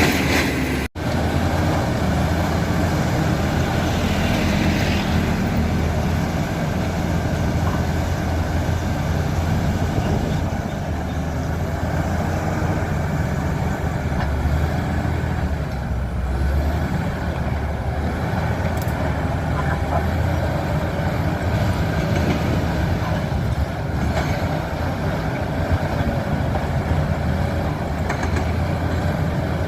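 Komatsu D85E-SS bulldozer's diesel engine running steadily with heavy low rumble, the sound broken for an instant about a second in.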